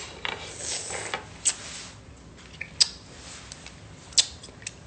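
A plastic fork clicking and tapping against a plastic fruit cup a handful of times while eating, with a soft rustle in the first second.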